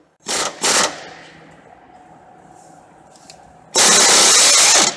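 Cordless impact wrench hammering on the 16 mm bolt of a serpentine belt tensioner to break it loose. Two short bursts come in the first second, then one longer burst of about a second near the end.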